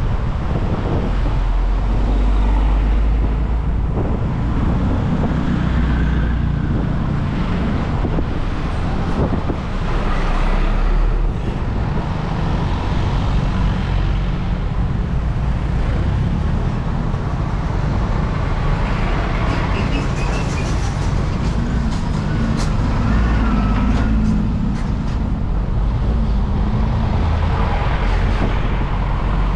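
Motor scooter running on the road in traffic: steady engine, wind and tyre noise, with the low sound of nearby cars and a truck.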